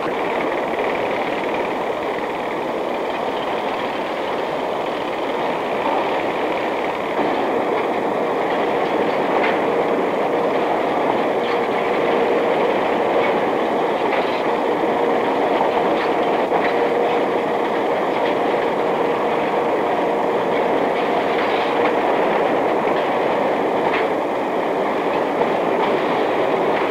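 Bakery conveyors and dough-handling machinery running: a steady mechanical clatter with a faint hum and occasional sharp clicks.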